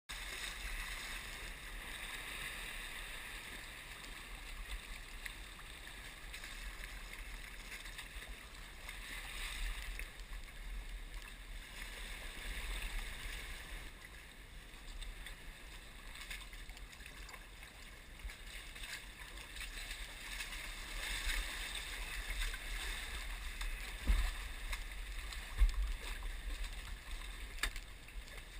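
Water splashing and lapping around a kayak as it is paddled, with a steady low rumble. Two short thumps come near the end.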